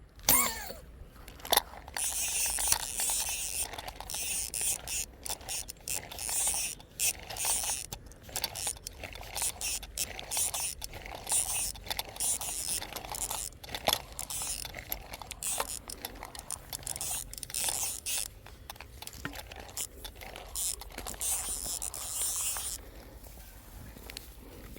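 Slingshot-fishing reel being wound quickly, a dense run of ratchet-like clicking and scraping that stops about two seconds before the end, opened by a sharp snap with a short falling sweep as the shot is loosed. The arrow's line is being reeled back in after the shot at a tilapia.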